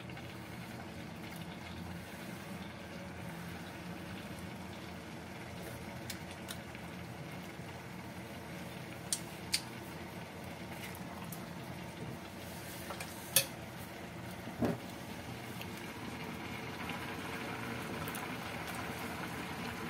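Pot of coconut-milk vegetable stew bubbling on the stove as it comes to the boil, the hiss growing slightly louder near the end. About halfway through, a ladle clinks against the pot a few times, sharp and short.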